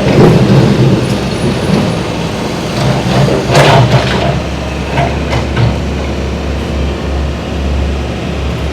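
Demolition excavator's diesel engine running under load, with crunching crashes of breaking brick and falling debris, the biggest about three and a half seconds in.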